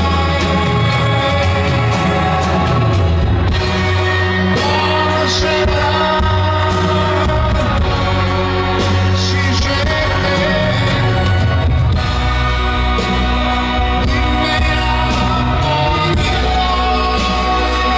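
Live rock band with orchestra and choir playing a slow song with singing, heard from the crowd at an outdoor concert.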